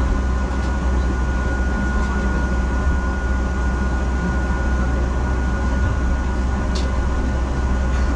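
Double-decker bus in motion, heard from the upper deck: a steady low rumble of engine and road noise with a thin, steady whine above it.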